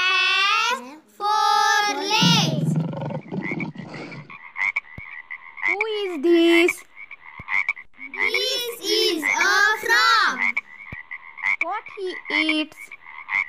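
Frog croaking in a series of repeated calls, the sound of the animated 3D frog in an augmented-reality animal app. Children's voices come at the start.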